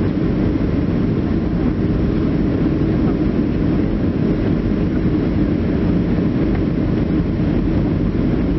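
Airliner cabin noise in flight: a steady, low rumble of the jet engines and of air rushing past the fuselage, even and unchanging.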